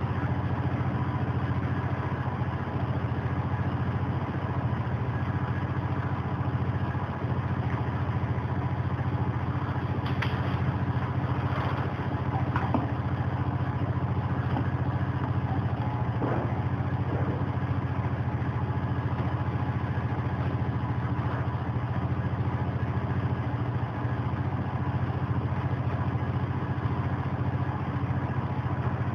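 Steady low mechanical hum that does not change. A few light knocks and rustles come through about a third to halfway in.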